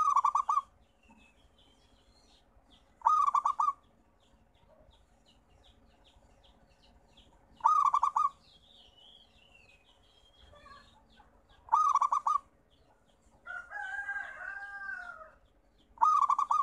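Zebra dove (perkutut) calling: five short, loud, trilled coos, about one every four seconds. Between the last two, another bird gives a longer, quieter call that rises and falls in pitch, with faint small-bird chirps behind.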